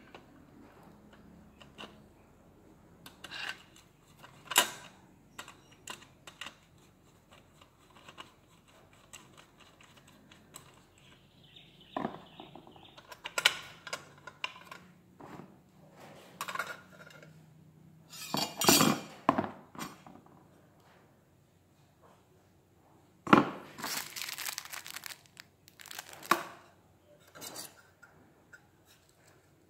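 Unpacking an LED wall lamp: bubble wrap and plastic crinkling, with scattered knocks and clinks from the lamp's body and metal mounting plate being handled. The loudest moment, about three quarters of the way through, is a sharp knock followed by about a second of crinkling.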